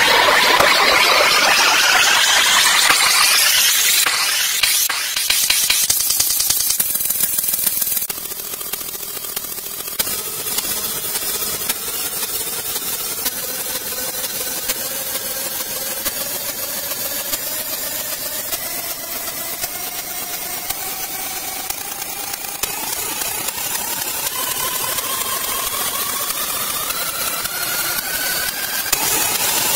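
Electronic synth risers over a hissing noise bed. A quick upward sweep peaks about four seconds in; after a drop in level a second tone climbs slowly and steadily in pitch to the end, like a build-up.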